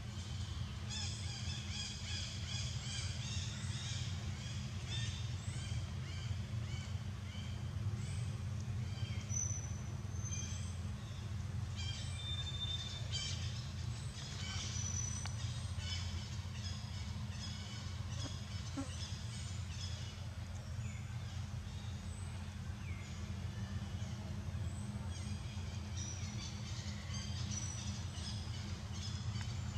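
Birds chirping, short high notes repeated many times in quick runs, over a steady low rumble.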